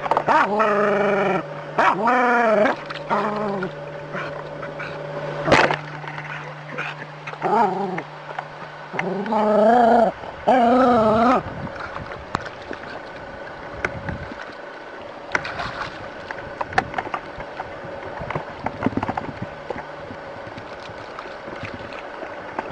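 A dog barking and yelping in a run of several drawn-out, wavering calls over the first eleven seconds or so, facing off against a snake. After that come quieter scattered knocks and rustles.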